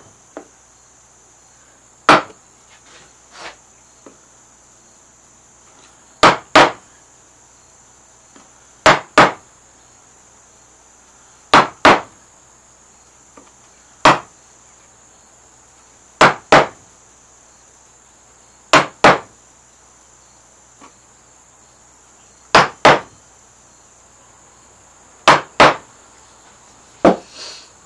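Wooden mallet striking a carving chisel into Alaskan yellow cedar, making stop cuts along the margins of a carved pattern. Sharp knocks come mostly in quick pairs, one pair every two to three seconds, as the chisel is moved along to each new cut.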